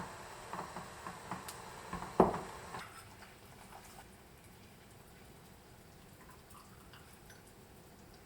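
Swing-top bottles with wire closures and rubber seals being handled and closed: a run of small clicks and taps, then one loud clunk with a short ring about two seconds in. After about three seconds only faint room tone remains.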